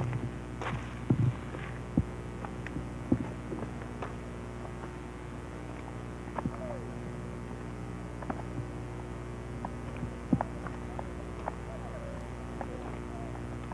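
A steady low electrical hum, with scattered short clicks and knocks, most of them in the first few seconds.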